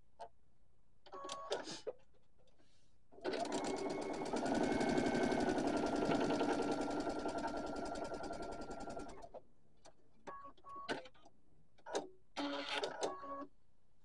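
Electric sewing machine stitching a seam in one continuous run of about six seconds, starting about three seconds in: a fast, even stitch rhythm with a steady motor whine. Scattered clicks come before and after the run.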